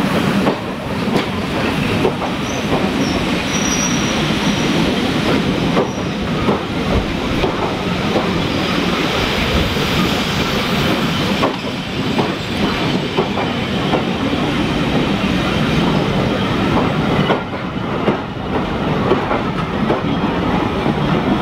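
Railway passenger coaches rolling past close by: a steady rumble of steel wheels on the rails with scattered clicks, and a thin high wheel squeal a few seconds in.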